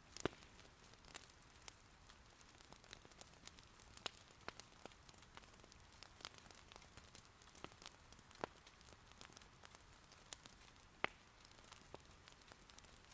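Wood fire in an irori hearth crackling softly, with sharp irregular pops (the loudest just after the start and near the end) over a faint steady hiss of rain.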